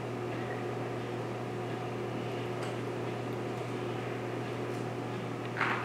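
Slide projector running with a steady fan hum. A single click about two and a half seconds in as the slide changes, and a short, louder sound near the end.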